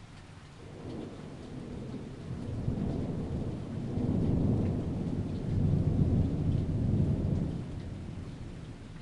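Thunder rumbling over steady rain: the rumble builds about a second in, rolls in waves to its loudest in the second half, then dies away near the end.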